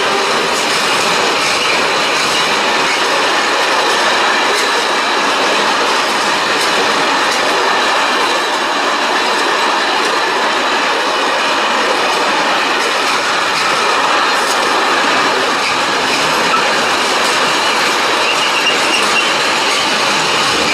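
Freight train rolling steadily past behind a BB 26000 electric locomotive: a continuous rumble of open box and flat wagons on the rails, with faint wheel squeal and scattered clicks over the rail joints.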